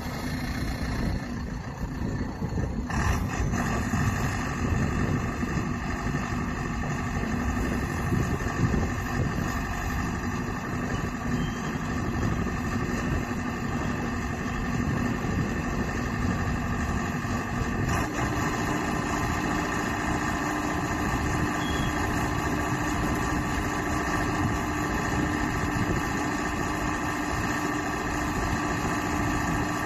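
Solar pile driver's engine and hydraulics running steadily. A higher whine joins a few seconds in, and the low hum steps up slightly in pitch about two-thirds of the way through.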